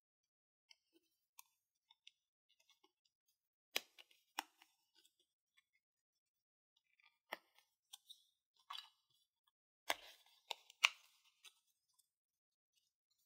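Scattered sharp clicks and taps of small plastic toy pieces being handled, with faint light rustling between them; the loudest taps come as a quick run of three late on.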